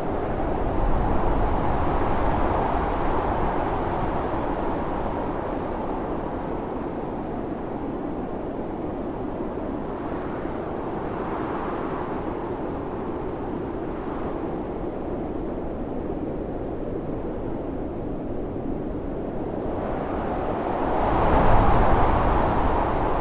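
Strong blizzard wind blowing steadily, with gusts that swell louder about a second in and again near the end, bringing a deep rumble with them.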